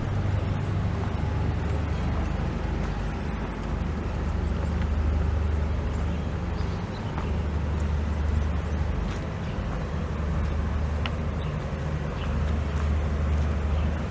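Steady low rumble of a motor vehicle with city street noise.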